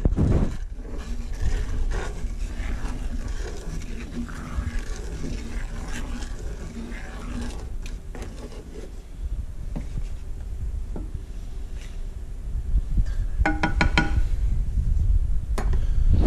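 Wooden spoon stirring a simmering cream sauce in a cast-iron skillet, with scattered scrapes and taps against the pan, over a steady low rumble. A brief rattle with a ringing tone comes near the end.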